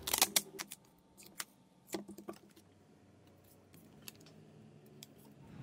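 Adhesive tape crackling as it is pulled and pressed onto a steel axe head, a quick run of sharp clicks and rustles in the first second. A few more clicks come around two seconds in, then scattered faint taps.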